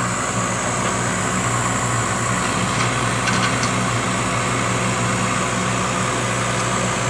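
Laser cutter's exhaust fan and pumps running with a steady hum and whir, clearing the smoke after a cut.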